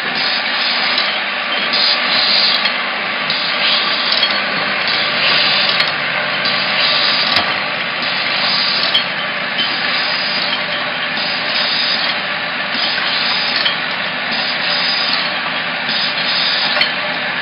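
Automatic screw-capping line for glass bottles running: a steady mechanical hum and rattle from the conveyor, star wheel, capping head and cap-feeder bowl, with occasional light clicks.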